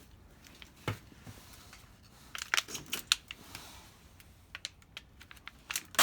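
Scattered light clicks and clatter of scrap metal items, such as flattened aluminium cans, being handled, in small uneven clusters.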